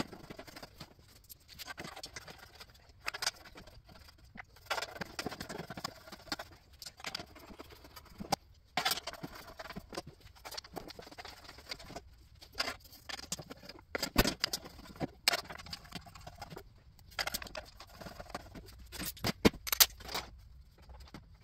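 Irregular metal clicks, taps and light scrapes of bolts and hand tools as the oil pan goes onto a GM 4L80E automatic transmission, with a few sharper clinks past the middle and near the end.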